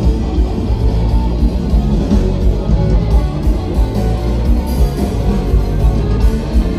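Live jazz band playing through the stage speakers, with electric guitar over a strong bass line and a pulsing beat: the band warming up before its evening concert.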